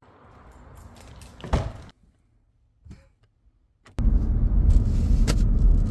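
A single knock, then a near-silent gap, then a loud steady low rumble that starts suddenly about four seconds in.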